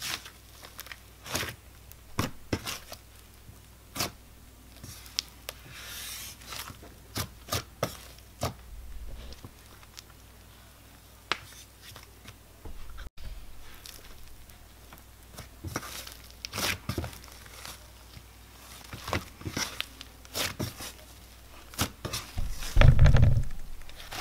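Pink butter slime being squeezed, poked and stretched by hand: sticky, irregular clicks, pops and crackles. Near the end there is one louder dull thump.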